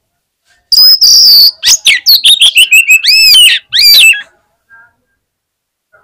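Oriental magpie-robin (kacer) singing a loud burst of fighter song, starting about a second in: a harsh rasping note, then a rapid run of sharp whistled notes that swoop up and down. The burst stops after about three and a half seconds.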